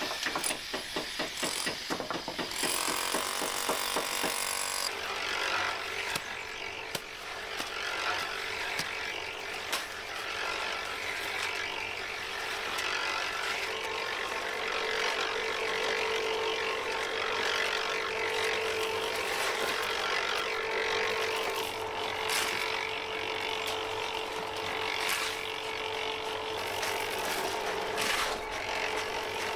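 Rapid, even knocking for the first two seconds or so, then a power tool's motor running steadily with a constant hum under a noisy whirr.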